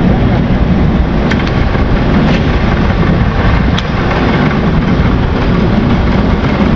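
Wind buffeting the action camera's microphone: a loud, steady, rough rumble and hiss, with a few faint ticks.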